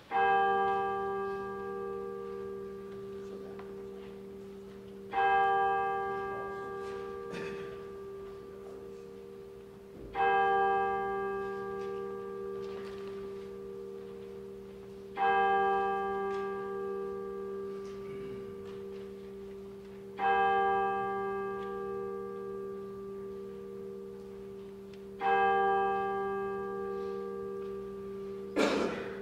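A single church bell tolling slowly: six strikes about five seconds apart, each ringing on and fading before the next. A short sharp click sounds near the end.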